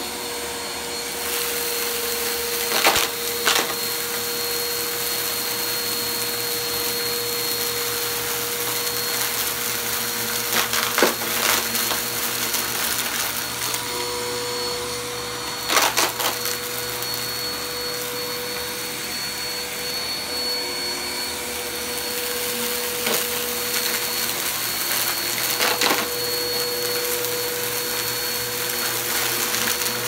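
Bagless upright vacuum cleaner running steadily with a constant whine over its hiss as it is pushed across carpet, with a few brief clatters as small bits of debris are sucked up.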